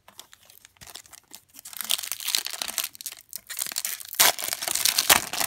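Foil trading-card pack wrapper crinkling as it is pulled from the box and handled, then torn open along its crimped top, with the loudest tearing about four to five seconds in.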